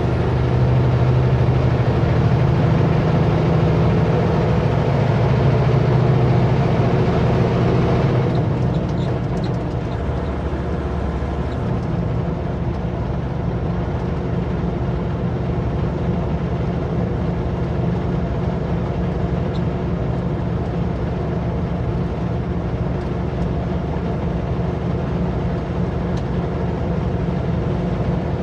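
Kenworth W900L semi truck's diesel engine running steadily while under way, heard from inside the cab; it is louder for the first eight seconds or so, then eases off to a quieter steady running.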